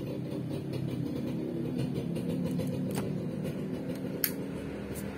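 Steady low mechanical drone, like a motor running, with two faint clicks about three and four seconds in.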